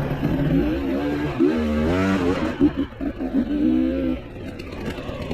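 Dirt bike engine revving up and down with the throttle, its pitch rising and falling repeatedly, on a single-track trail ride. The audio is sped up to 1.5 times normal speed, which raises the pitch.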